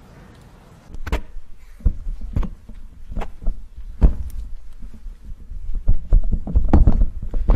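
Handling noise from a handheld microphone over the PA: a string of irregular thumps and knocks starting about a second in, as the microphone is picked up and handled.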